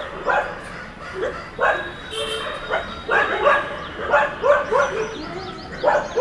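Stray dogs barking repeatedly in quick, irregular bursts.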